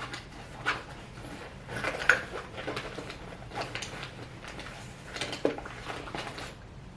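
Makeup products and their small containers being handled and picked through: irregular clicks and light rattles, the loudest about two seconds in.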